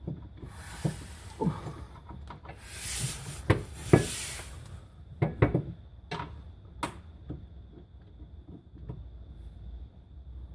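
Irregular knocks, clicks and rustling as a metal jacking rail and its bolts are handled and shifted into line with the mounting holes under the car. The loudest knocks come about three and a half to four seconds in.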